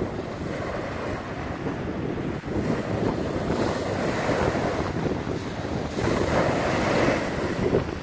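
Small wind-driven waves on a wide river breaking and washing up a sandy shore, with a louder wash near the end. Wind buffets the microphone.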